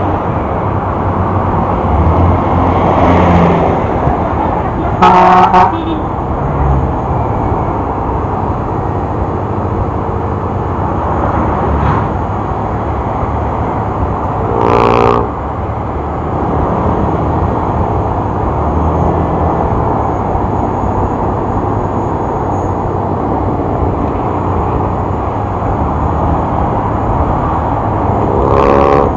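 Steady motorcycle engine, wind and traffic noise, broken by short, loud vehicle horn blasts about five seconds in, around fifteen seconds in, and again at the very end.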